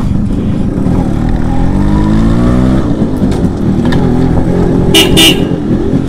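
Yamaha RX 135's two-stroke single-cylinder engine running as the bike pulls away, its pitch rising about two seconds in. A Roots electric horn gives a quick double toot near the end.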